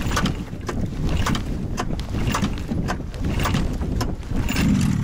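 Outboard boat motor running at idle on choke just after a cold start, with a regular beat about twice a second.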